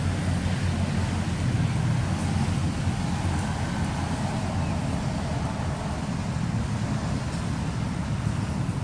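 Steady low rumbling background noise with a fainter hiss above it, unbroken and without distinct events.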